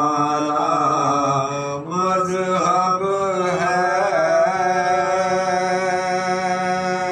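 Soz-khwani: men's voices chanting a Shia elegiac lament without instruments, in long, drawn-out held notes. A short break about two seconds in, then a new phrase begins.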